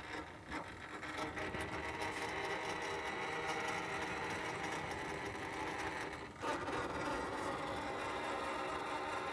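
Carolift 6900 crane's electric motor running steadily with a hum, driving the arm in. It stops for a moment about six seconds in, then runs on.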